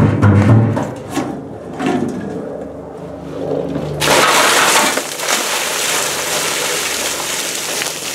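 Upright bass plucked in deep notes that die away within the first second. About four seconds in, a bucket of ice water pours down in a sudden loud splashing rush that slowly fades.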